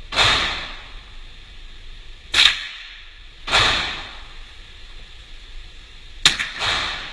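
Rifle shots: five sharp reports, each trailing off over about half a second, the last two close together near the end.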